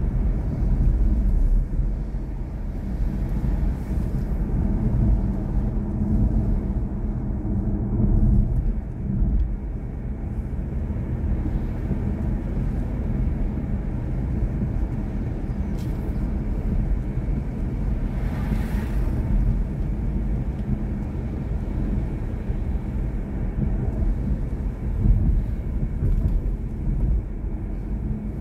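Steady low road and tyre rumble inside the cabin of a moving BMW i4 M50, an electric car, so there is no engine note, on a wet road. A brief louder hiss comes about two-thirds of the way through.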